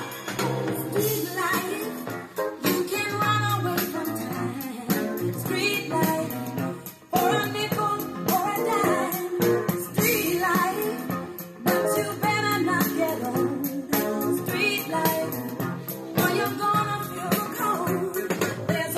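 A song with a singing voice played through a small box speaker with a horn tweeter mounted on top, under test.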